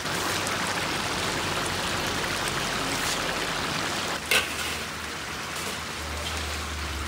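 Pilaf broth (zirvak) boiling hard in a large cast-iron kazan under a heap of freshly added rice, making a steady, rain-like bubbling hiss. There is a single sharp click about four seconds in.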